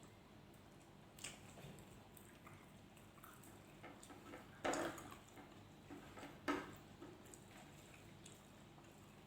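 Faint close-up eating sounds: small wet mouth clicks and chewing, with two louder sharp clicks about halfway through and a couple of seconds later.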